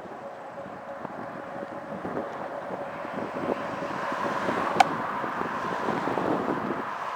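Wind on the microphone and steady road noise while riding a bicycle, with a faint hum that rises slowly in pitch and one sharp click about five seconds in.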